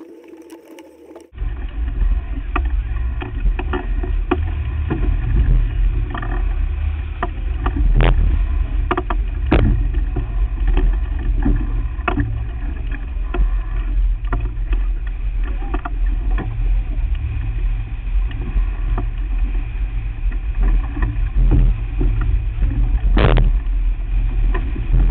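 Steady low rumble of a sailboat under way, with scattered sharp knocks and clicks from the boat's gear, one louder knock near the end.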